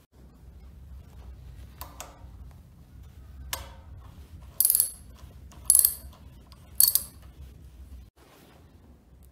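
Ratchet wrench clicking as it is worked on the nut of an old grease gun's plunger rod: a few light metal clicks, then three loud bursts of ratcheting about a second apart.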